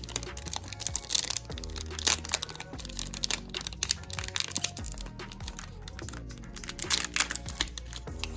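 Background music, over crinkling and crackling as a plastic trading-card pack wrapper is torn open and the cards are handled, with a scatter of sharp crackles, loudest about two seconds in and near the end.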